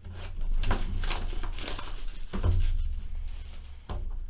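Cellophane shrink-wrap being slit and torn off a sealed trading-card hobby box, a run of quick crinkling rustles. A dull knock of the box against the table comes about two and a half seconds in, and another near the end.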